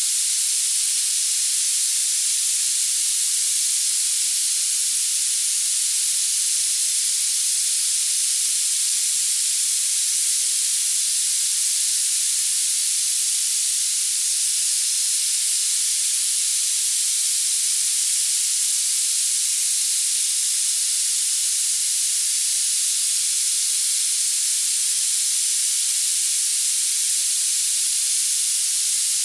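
Steady, high-pitched hiss of filtered noise with no low end and no change over time, played as a tinnitus masking sound.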